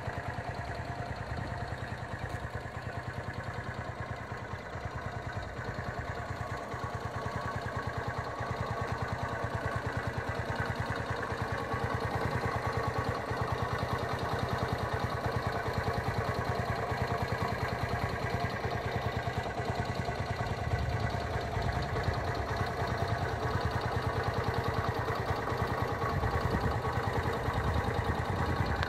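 Four-stroke 125 cc single-cylinder engine of a Genata Gen Moto XRZ 125 motorcycle idling steadily, a little louder toward the end.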